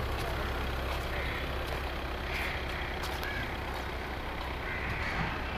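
City street traffic: a steady low rumble of vehicles, with a few faint higher tones over it.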